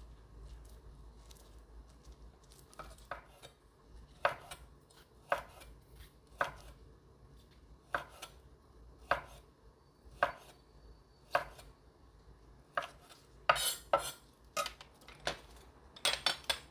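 Kitchen knife slicing rolled jujubes on an end-grain wooden cutting board: the blade knocks the board about once a second, the cuts coming quicker later on. At the very end, a glass bowl is set down with a short clatter.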